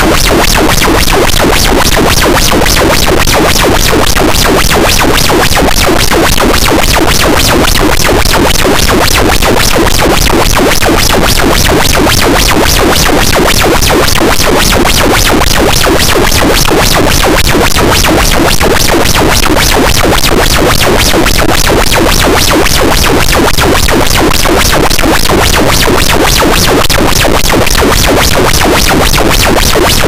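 Harsh noise wall: a loud, dense, unchanging wall of distorted noise across the whole range, with a rapid, even flutter running through it.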